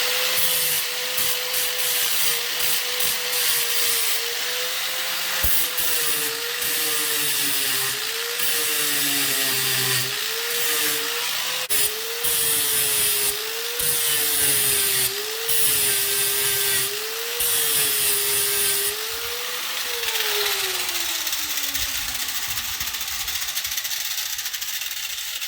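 Handheld electric power tool scrubbing metal clean to prepare it for welding. Its motor whine dips and recovers over and over as it is pressed into the work, over a steady scraping hiss. About 20 seconds in, it is released and winds down, the whine falling away.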